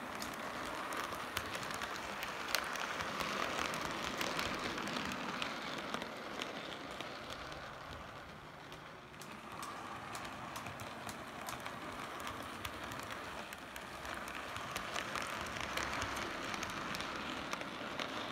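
H0 scale model train, a ЧМЭ3 diesel shunter with wagons, running on metal track: a steady electric motor whir with fast, fine clicking of wheels over rail joints and points. It fades a little midway and grows louder again as the train nears.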